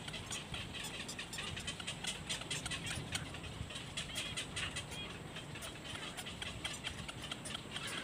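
Outdoor ambience: a steady low rumble with many faint, quick crackling clicks scattered throughout.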